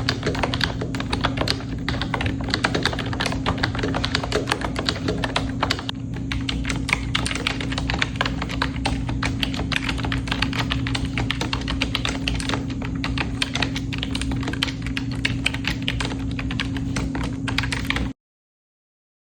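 Fast, continuous typing on a mechanical keyboard: a dense stream of key clacks at an even pace. It cuts off abruptly near the end.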